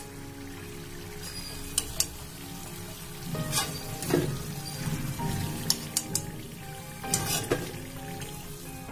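Samosas deep-frying in hot oil in a metal kadhai, a steady sizzle, with several sharp clinks of a metal slotted spoon against the pan as they are lifted out.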